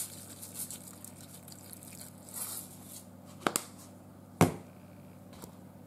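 Kitchen handling sounds: a seasoning shaker shaken over the cooker pot, then two sharp knocks about three and a half and four and a half seconds in, the second the loudest, over a faint steady hum.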